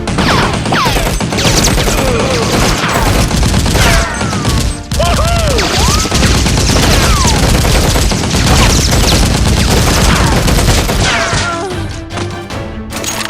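Sustained rapid gunfire, shot after shot with falling whistling sounds among them, over background music. It breaks briefly about five seconds in and eases off near the end.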